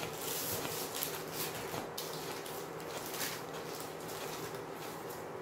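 Soft rustling and handling of a sheet of store-bought puff pastry being unrolled from its paper, in several short brushes in the first few seconds. A steady low electrical buzz runs underneath.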